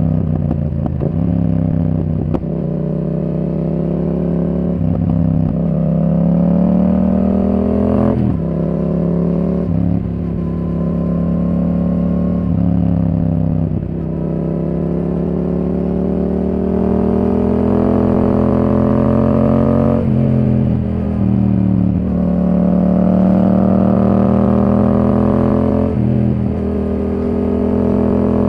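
Yamaha R7's 689 cc parallel-twin engine through a Yoshimura R77 exhaust, on the move under throttle. The pitch climbs through the revs and drops sharply again and again, as at gear changes, with brief dips in level between the pulls.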